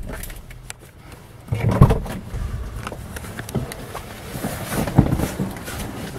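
Handling noise: a fabric bag being rustled and moved about, with two dull thumps, the louder about two seconds in and another about five seconds in.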